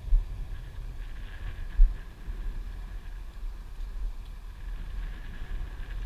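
Wind buffeting the camera's microphone: a steady low rumble with two sharper gusts, one at the very start and one just under two seconds in.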